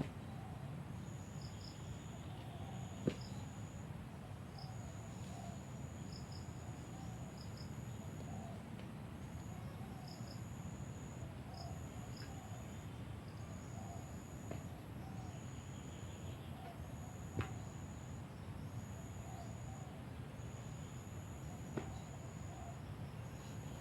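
Insects trilling in the field: a steady high buzz that breaks off and starts again every second or so, with short paired chirps between. Three sharp clicks stand out over it, one early, one past the middle and one near the end.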